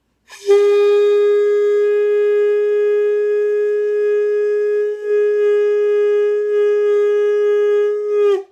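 A wind instrument, played with only part of it assembled, sounds one long steady note for about eight seconds, with a brief dip about five seconds in. It is an attempt at G sharp.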